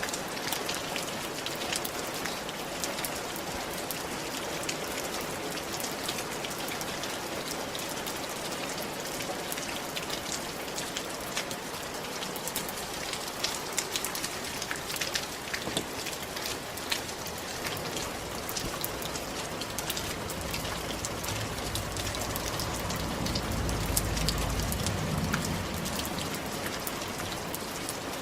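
Steady rain falling, with many individual drops striking a hard surface as sharp clicks. Late on, a low rumble swells and fades under the rain.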